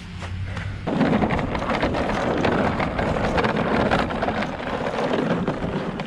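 Toro single-stage two-stroke snowblower running with a steady hum, then about a second in a loud, continuous rushing and crackling as it bites into deep drifted snow and throws it.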